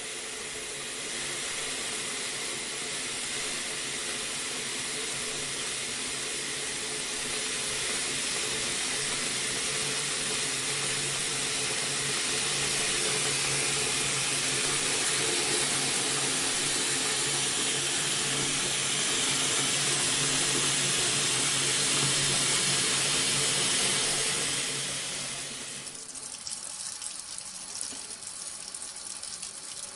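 Water running from a bathroom faucet into a sink basin, a steady stream that grows slightly louder. About 25 seconds in the flow drops off, leaving a quieter, uneven splashing.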